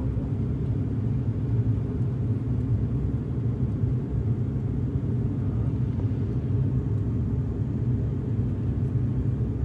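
Steady low drone of an aircraft in flight, heard from inside the cabin: engine and airflow noise with no change in pitch or level.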